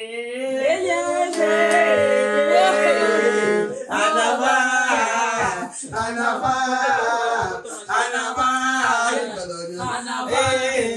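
Music with singing voices. A long note is held from about a second and a half in until near the four-second mark, then a moving melody runs on.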